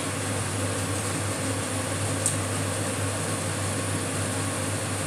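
Steady whirr of a kitchen extractor fan over the stove: a low hum under an even hiss, with one light click about two seconds in.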